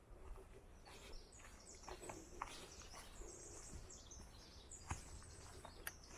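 A songbird singing faintly, in high, quick chirping phrases that come and go. A few soft taps or footsteps sound under it.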